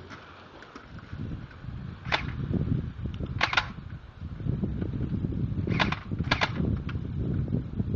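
Airsoft guns firing sharp pops: one shot about two seconds in, a quick pair halfway, then a single shot and another quick pair near the end, over a low rumbling noise.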